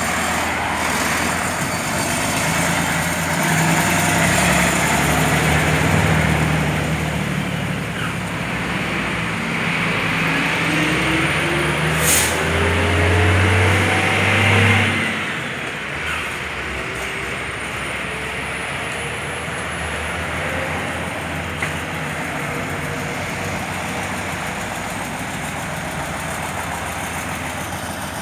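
1992 Mercedes-Benz 1422 truck's V6 diesel engine running as the truck drives and manoeuvres, its pitch rising and falling with the throttle and gear changes. There is one sharp click about twelve seconds in, and after about fifteen seconds the engine settles to a steadier, lower running sound.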